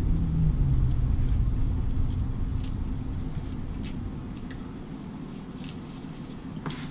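A low rumble that fades away over the first few seconds, with a low tone sliding down in pitch. Over it are a few faint short clicks of chewing and finger-licking.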